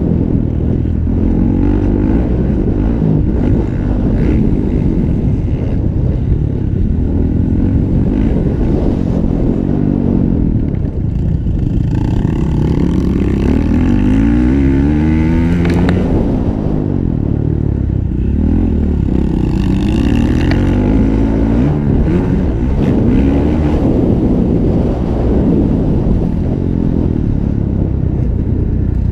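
Honda 450 motocross bike's single-cylinder four-stroke engine revving hard and easing off again and again as it is ridden round the track, its pitch rising and falling every second or two. Recorded up close by a bike-mounted camera.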